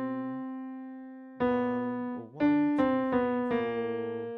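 Digital piano playing single notes slowly. One note rings and fades for over a second, then five more notes come about half a second to a second apart, and the last is left to ring.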